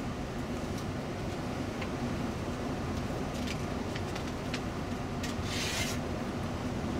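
Cabin noise inside a moving Setra coach: a steady engine and road drone with light clicks and rattles, and a brief hiss about five and a half seconds in.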